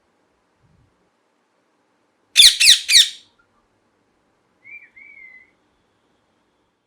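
Ringneck parakeet giving three loud, harsh screeches in quick succession about two and a half seconds in, followed a second later by a short, fainter whistled note.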